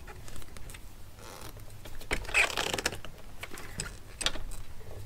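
Thomas & Betts hand crimpers squeezing a splice sleeve onto heavy-gauge wires: a string of short clicks with scraping and rustling of the wire bundle, loudest about two seconds in.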